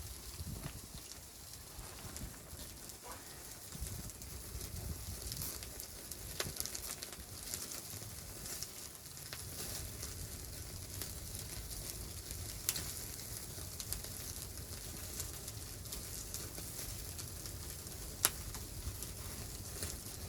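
Crackling and sizzling from a wood-stove fire, over a steady low rumble, with two sharp pops: one a little past the middle and one near the end.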